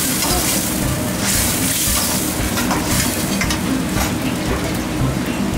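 Curry sauce frying and sizzling in a hot pan as it is stirred, with a dense steady hiss and scattered clicks and scrapes from the stirring utensil.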